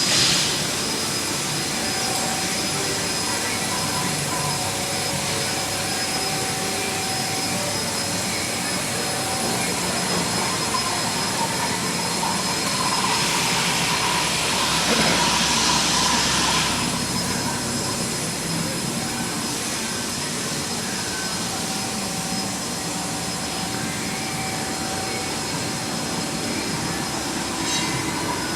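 Steady machine-shop noise: a continuous whirring hiss with a few steady whines, swelling into a louder hiss from about 13 to 17 seconds in.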